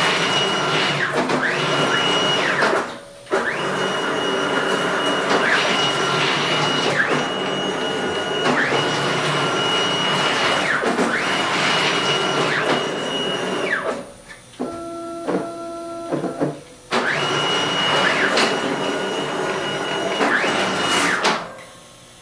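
Stepper-motor drives of a home-built Joe's CNC Evolution router moving the gantry and carriage in a series of rapid moves: a loud mechanical rush with a steady high whine, starting and stopping several times. Around two-thirds of the way through there is a quieter, slower move with a few steady hum tones, and the motion stops shortly before the end.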